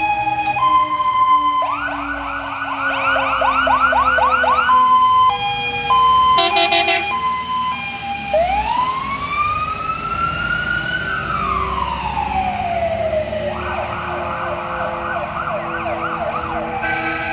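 Volvo FL fire engine's siren on an emergency run, switching between a hi-lo two-tone, a fast yelp, and a long wail that rises and then falls, with a short horn blast about six seconds in; the yelp returns near the end.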